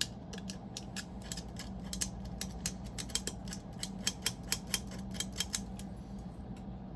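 Quick, irregular scraping strokes, a few a second, as a hand tool scrapes residue off the end terminal of a nickel-cadmium battery cell, cleaning it for spot welding.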